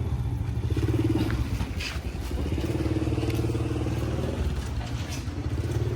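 An engine running steadily at low speed, with a few short knocks and clatters on top.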